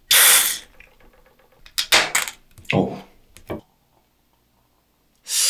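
A can of Tsingtao non-alcoholic beer cracked open with a sharp hiss right at the start. Beer then glugs from the can into a glass mug in a few irregular spurts. A short rush of noise comes just before the end.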